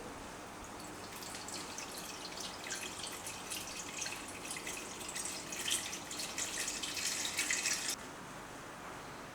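Kitchen tap running into a sink with splashing, building up over a few seconds and then turned off sharply about eight seconds in.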